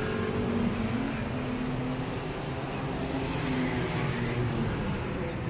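Street traffic noise with a motor vehicle engine humming steadily nearby; the hum fades about four and a half seconds in.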